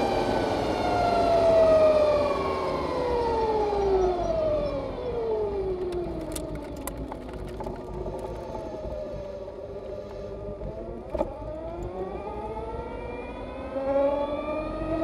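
2020 Harley-Davidson LiveWire's electric motor whining in several pitches at once. The whine falls as the bike slows for a bend, then rises again as it accelerates away from about ten seconds in, over the rush of wind. A sharp click comes about eleven seconds in.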